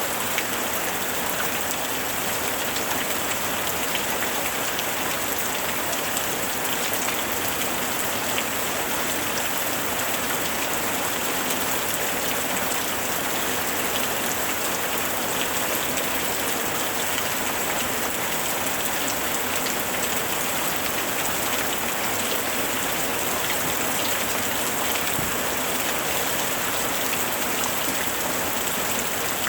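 Steady heavy rain: a dense, even hiss sprinkled with many small drop ticks.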